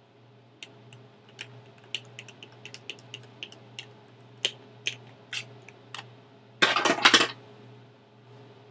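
Scattered light clicks and taps of a small Phillips screwdriver and plastic parts as a camcorder viewfinder is screwed on, then a short, louder rattle about seven seconds in.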